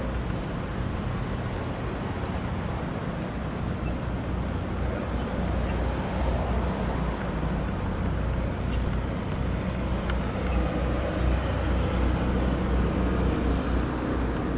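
Steady drone of running machinery, a low hum under a broad rushing noise, typical of the air scrubbers and pumps running on a flood-extraction site.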